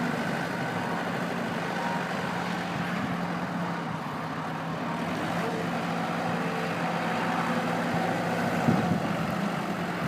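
Komatsu WB-140-2 backhoe's diesel engine running steadily, with a single short knock near the end.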